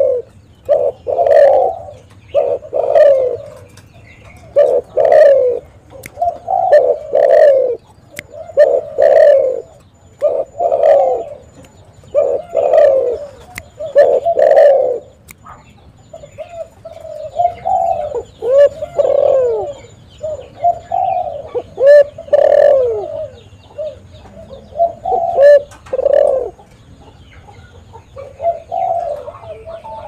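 Spotted dove (tekukur) cooing over and over, low coo phrases following one another every second or two. After about halfway the coos turn more rising-and-falling in pitch.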